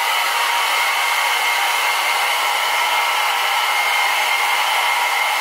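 Handheld hair dryer blowing steadily: an even rush of air with a faint, steady motor whine underneath.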